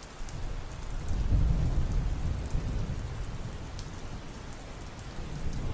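Steady rain with a low roll of thunder that swells about a second in and slowly dies away.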